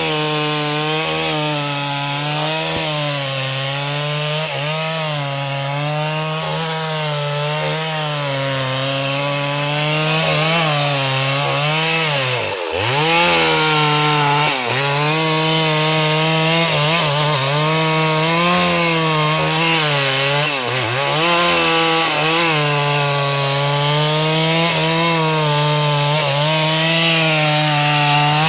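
Stihl MS 381 two-stroke chainsaw running at high revs while cutting sengon wood. The engine pitch wavers with the load and dips briefly a few times, most deeply about twelve seconds in, before picking up again.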